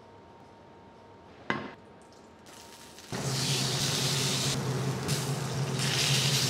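A single sharp clank about one and a half seconds in, then from about three seconds a steak sizzling loudly as it sears in a hot cast-iron skillet under a steak weight.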